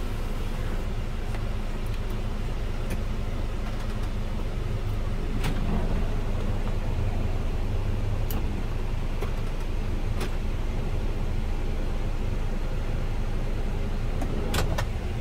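The Kia Carnival's 2.9-litre turbo diesel idling, a steady low rumble heard from inside the cabin, with a few light clicks along the way.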